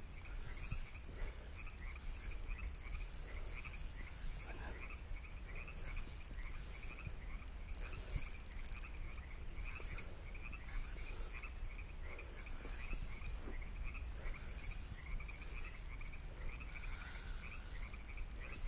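Night chorus of frogs and crickets at the water's edge: a steady run of short chirps about three or four a second, layered with higher trills that come in pulses roughly once a second.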